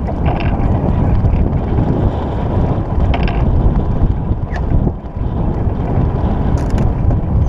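Wind buffeting the microphone aboard a sailing yacht under way, a loud, steady low rumble, with two short hissing bursts near the start and about halfway through.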